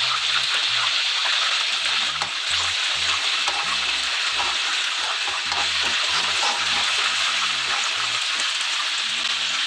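Whole fish deep-frying in hot oil in a wok, giving a steady sizzle, with a ladle stirring thick sauce in the pan beside it.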